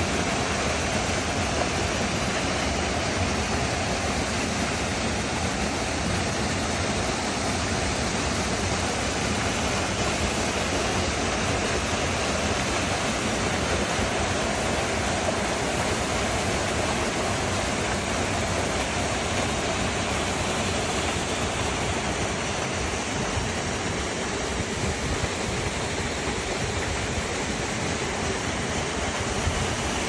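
Small waterfall on a mountain stream pouring over rock: a steady, even rush of falling water.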